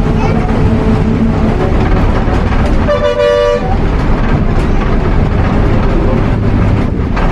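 Steady engine and road rumble heard from inside a moving bus, with one short vehicle horn toot about three seconds in.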